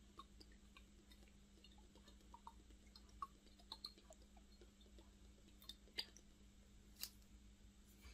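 Near silence: a faint steady room hum with a few soft, scattered ticks.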